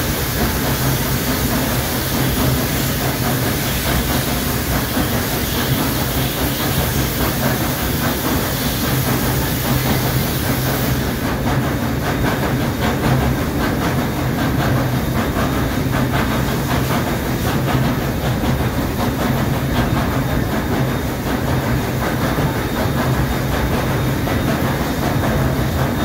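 A train hauled by a Baldwin 2-6-6-2 articulated steam locomotive running through a tunnel, heard from the car right behind the engine: a loud, steady rumble and rail clatter with steam hiss, echoing off the tunnel walls. The high hiss drops away about eleven seconds in.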